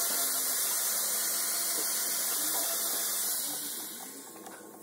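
Aerosol can spraying penetrating oil onto a rusty leaf-spring bolt: a steady hiss that fades out over the last second or so.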